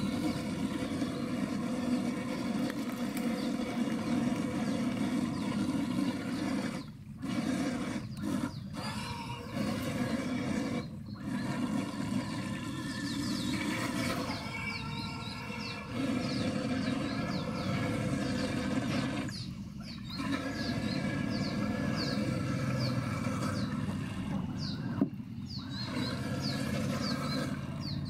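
Redcat Gen8 Scout II RC crawler's electric motor and gears whining steadily under load as it wades through deep creek water, dropping out briefly several times.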